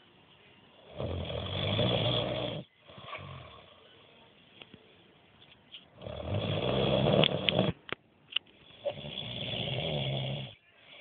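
A man snoring: three long, loud snores with quieter breaths between them, the first about a second in and the last near the end.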